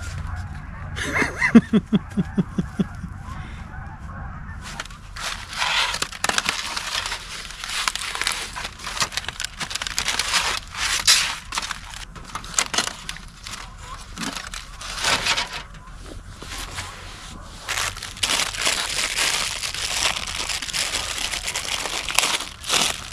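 A goose honking in a quick run of about eight calls, about a second in. Then crinkly wrapping is handled, with irregular rustles and crackles.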